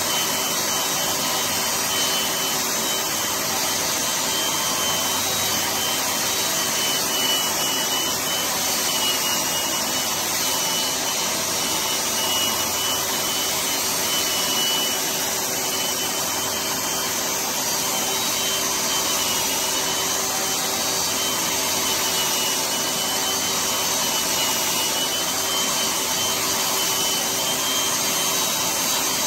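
Power sander running steadily with its dust-extraction vacuum, sanding down plaster patches; a continuous motor noise with a faint steady whine, scraping against the plaster throughout.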